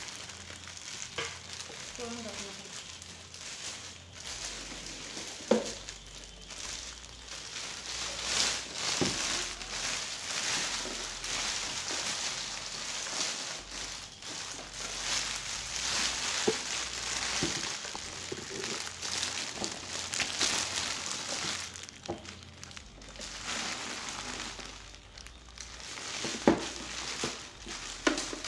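Clear plastic wrap crinkling and rustling as it is pulled off a new mixer grinder, with a few sharp knocks of the unit being handled.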